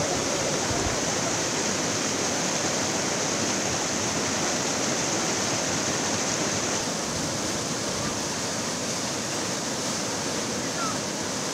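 Fast-flowing floodwater rushing steadily, an even continuous rush that drops slightly in level about seven seconds in.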